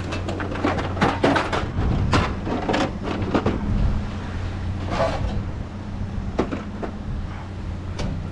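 Junk being handled and shifted while rummaging through a curbside trash pile: a run of clatters and knocks, busiest in the first four seconds and sparser after, over a steady low hum.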